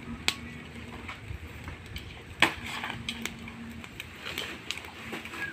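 Wood fire under a talyasi crackling, with scattered sharp pops and ticks; the loudest snap comes about two and a half seconds in.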